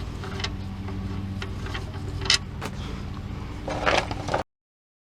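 Hot engine oil draining from the oil pan, with a few sharp clicks and a scrape near the end over a steady low hum. The sound cuts off abruptly about four and a half seconds in.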